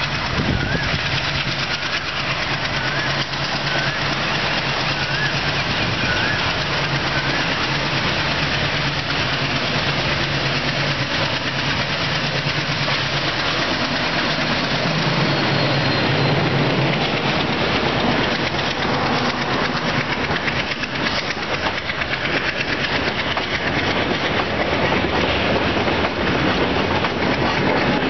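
A WDP3A diesel locomotive runs through, its engine a steady low note, then its coaches roll past with a dense, rhythmic clickety-clack of wheels over rail joints in the second half.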